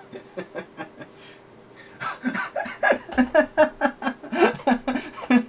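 A man laughing, a few short chuckles at first, then a longer run of rapid, rhythmic laughter starting about two seconds in.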